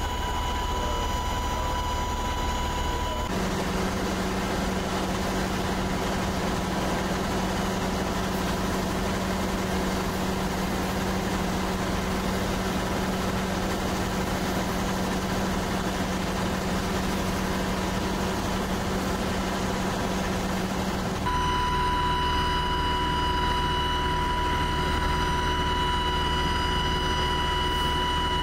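Fire apparatus engine and pump running, a steady heavy drone with a constant whine. Its tone shifts abruptly about three seconds in and again around twenty-one seconds.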